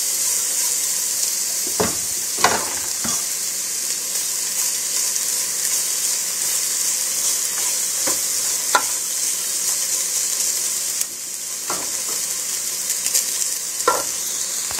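Rice and shredded vegetables sizzling in hot oil in a pot while being stir-fried with a spoon. The spoon scrapes and knocks against the pot now and then over a steady frying hiss.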